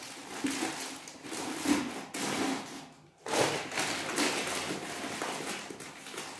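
Plastic grocery packets crinkling and rustling as they are handled, opened and emptied into a plastic storage container, with light taps and knocks. The sound drops off briefly about three seconds in.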